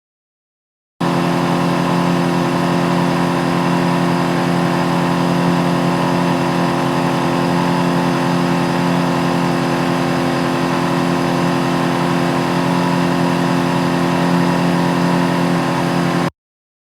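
Small boat's outboard motor running steadily at one constant speed, with no revving. It comes in about a second in and cuts off abruptly near the end.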